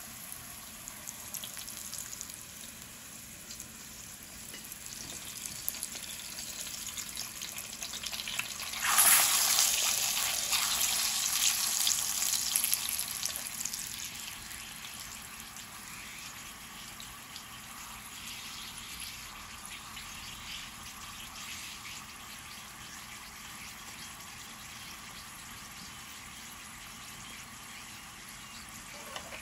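Corn tortilla frying in hot oil in a skillet, a steady sizzle. About nine seconds in the sizzle jumps loud as a fresh tortilla goes into the oil, then settles back over the next few seconds.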